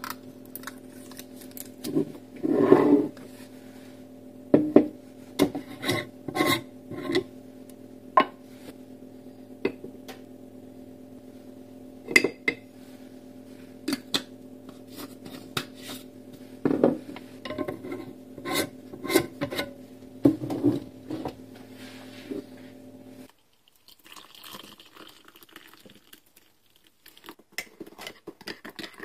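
Glass coffee jars clinking and knocking against each other and the countertop as instant coffee is tipped from one jar into a glass canister, over a steady low hum. Near the end the hum stops, and a metal spoon clinks against a ceramic mug as coffee is stirred.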